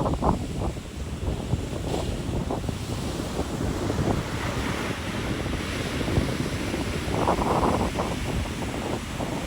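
Ocean surf washing in and out, with wind buffeting the microphone in gusts.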